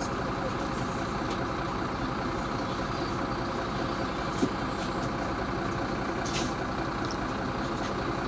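MAZ-203 city bus's diesel engine idling while the bus stands at a stop, heard from inside the cabin as a steady low rumble. A short hiss comes about six seconds in.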